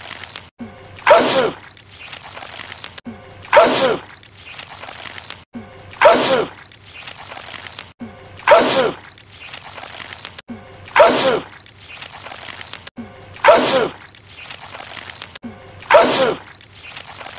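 A man's loud sneeze, the same sneeze repeated over and over, seven times about two and a half seconds apart. Each is a brief voiced wind-up that breaks into a sharp burst.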